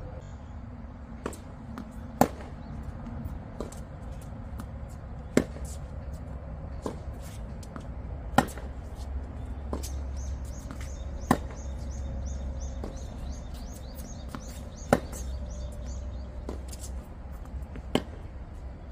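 Tennis rally on a hard court: a loud racket-on-ball hit about every three seconds, with fainter hits and ball bounces in between.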